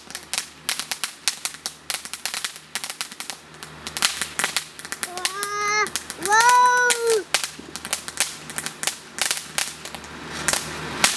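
Backyard fireworks crackling: a rapid, irregular run of sharp pops. A little past the middle, two short high-pitched wails rise over the crackle, the second louder and longer.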